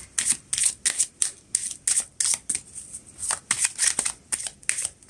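A deck of oracle cards being shuffled by hand: a steady run of quick card-on-card flicks and slaps, about three a second.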